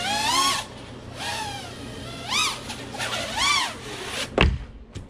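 Small FPV quadcopter's motors whining, the pitch swooping up and down with each burst of throttle. About four seconds in there is a sharp impact as the quad comes down, and the whine stops.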